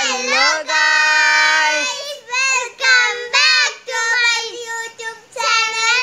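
Children's voices singing together: a long held note for the first couple of seconds, then a run of short sung or shouted syllables.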